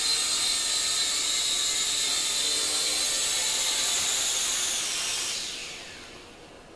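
Kyosho Quattrox Eye toy quadcopter's four small electric motors and propellers whirring in a steady high whine. About five seconds in the motors wind down, the pitch falling as the drone sits on the table with its props slowing.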